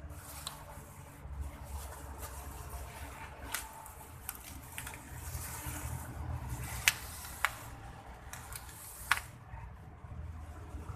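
Thin plastic carrier bag rustling and crinkling as it is handled and bunched up, with a few sharp crackles, over a steady low background rumble.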